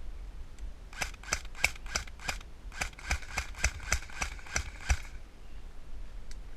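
Airsoft rifle firing single shots in quick succession: a string of five sharp shots, a short pause, then about eight more, roughly three a second.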